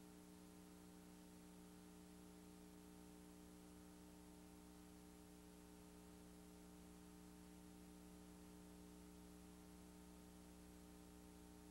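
Near silence: a faint steady electrical hum with a low hiss.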